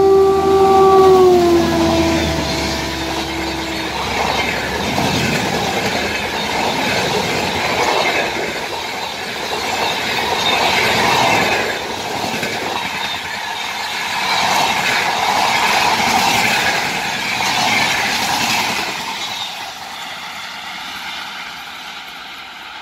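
WAP-7 electric locomotive's horn sounding a long two-note blast that falls in pitch and ends about four seconds in, as the express passes at speed. Then its LHB coaches rush by with steady wheel-on-rail noise, which fades near the end as the train runs away.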